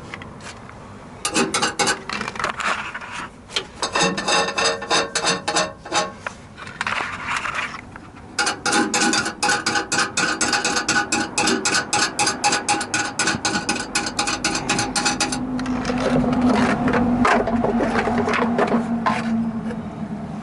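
Rapid, evenly spaced metallic clicking in two long runs, about a second in and again from about eight seconds in, with scraping between them and rougher rubbing and scraping near the end.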